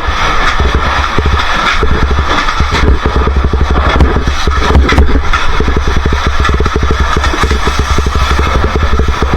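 Motorcycle engine running as the bike is ridden, a fast, even pulsing that quickens for a few seconds mid-way, with wind rumbling on the microphone.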